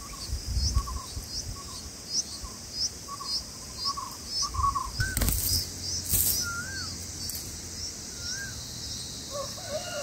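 Bulbuls calling at the nest: a steady run of short, high chirps about two a second over short lower notes. Around five and six seconds in there are two brief flurries of wing flutter, and a few clear, wavering calls follow.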